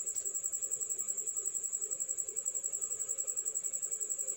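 An insect calling in the background: a steady high-pitched trill pulsing evenly, about a dozen times a second.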